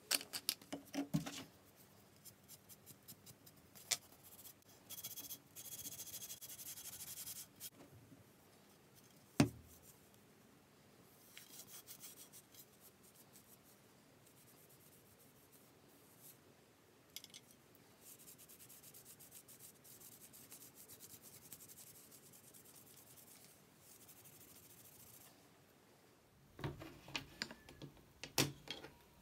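A cloth rubbing along a tennis racket frame, heard as stretches of soft hiss. Scattered clicks and knocks come from the racket being handled: one sharp knock about nine seconds in, and a cluster of clicks near the end.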